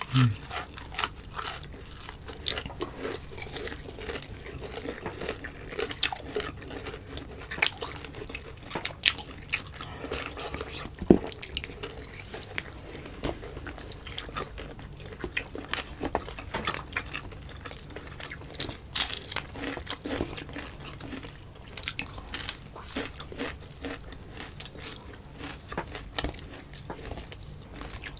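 A person chewing and eating close to the microphone, with irregular wet mouth clicks throughout.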